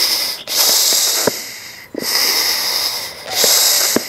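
Bellows of an Apisolis vapor bee smoker being pressed slowly and repeatedly. Each stroke gives a breathy hiss of air and vapor, about one every second and a half, with a few light clicks between strokes.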